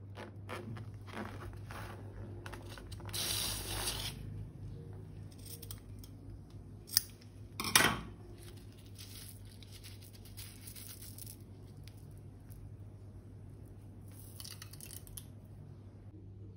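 Balloon rubber being cut open with scissors: a rasping tear about three seconds in, then two sharp snips near the seventh and eighth seconds, with faint rustling of the rubber later on.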